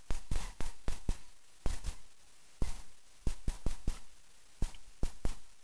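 Irregular sharp clicks and taps, some coming in quick clusters of two or three, with short quiet gaps between them; they stop about four fifths of the way through.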